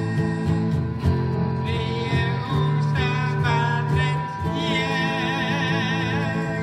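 Small live band playing a song through amplifiers, with electric guitar, keyboard and singing. A held note wavers near the end.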